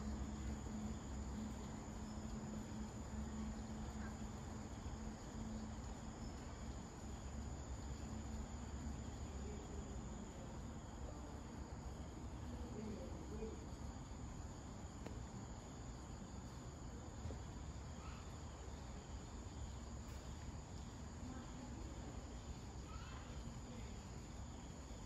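Crickets trilling steadily in a high, even tone, over a low background rumble.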